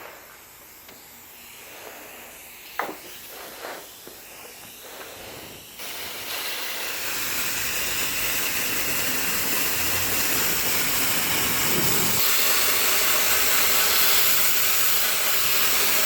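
A few faint knocks, then a steady, loud hiss that comes in about six seconds in and holds.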